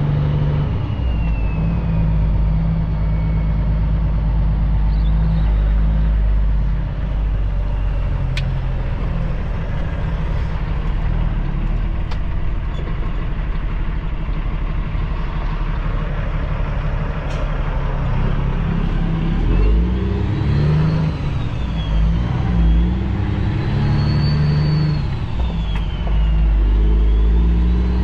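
Cummins ISX diesel engine of a Kenworth W900L heard from inside the cab, pulling away under load. In the second half it climbs and drops back about three times as the driver shifts up through the gears, with a high whine rising and falling along with it.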